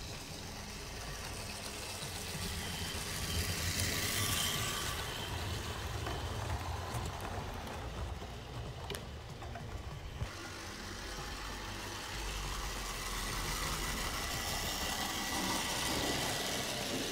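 Model Co-Bo diesel locomotive running along the track, its electric motor and wheels making a steady mechanical hum. It gets louder as it passes close, about four seconds in and again near the end.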